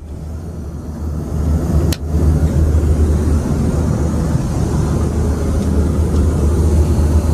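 Boeing 737-800 cabin noise in cruise: a steady, low rumble of engines and airflow. It is interrupted by a click about two seconds in, after which it runs a little louder.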